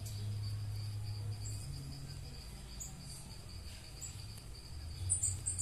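Small backyard birds giving short high chirps, several in quick succession near the end, over a steady high trill and a low hum.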